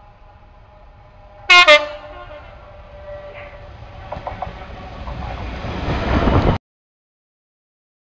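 Class 66 diesel freight locomotive 66539 gives a short two-tone horn blast about one and a half seconds in, then its engine and wheel rumble build as it runs through at speed. The sound cuts out abruptly near the end.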